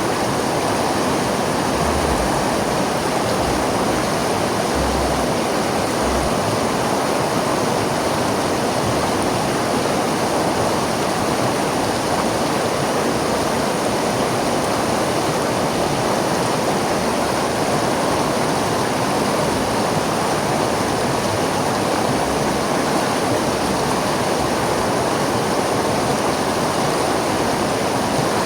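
River water flowing and rushing over rocks, a steady full rush with no breaks.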